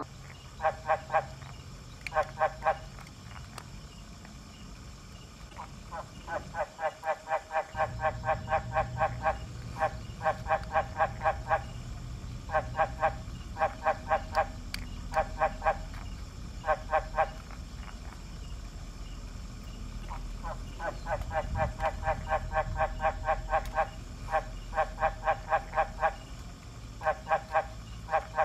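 A frog calling in repeated bouts of rapid, evenly spaced croaks, each bout lasting a second or two, over a steady low background hum.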